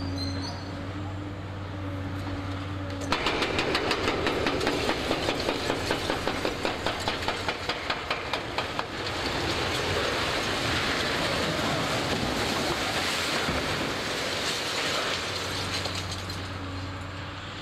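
Demolition of a concrete factory building by a high-reach excavator. Under the excavator's engine hum, a sudden fast, even clatter of about four knocks a second starts about three seconds in. It gives way to a long rushing noise as a section of the concrete structure collapses, and the engine hum comes back near the end.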